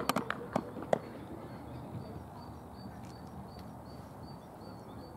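Faint outdoor background noise with a few sharp knocks in the first second. Through it a small bird chirps repeatedly in short, high notes.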